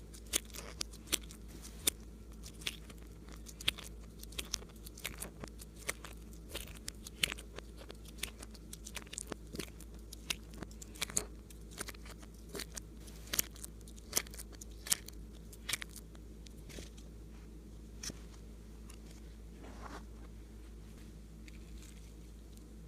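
Slime being mixed and worked, crackling with many sharp irregular pops and clicks that thin out after about two-thirds of the way through.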